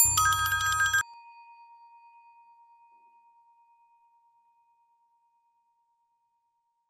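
Elevator chime: a bright bell-like ding of several ringing tones over a low hum, cut short after about a second, leaving one tone that rings away over about three seconds.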